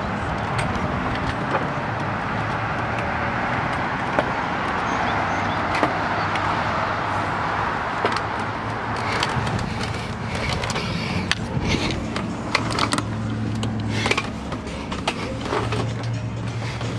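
A steady rushing noise, then a string of knocks and clicks as someone climbs down a boat's deck-hatch ladder into the cabin. A low steady hum sits under the later part.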